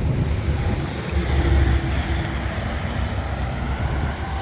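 A motor vehicle's engine running with a steady low rumble, swelling briefly about a second in.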